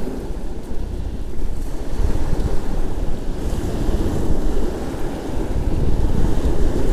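Strong wind buffeting the camera microphone: a loud, low rumble that rises and falls with the gusts.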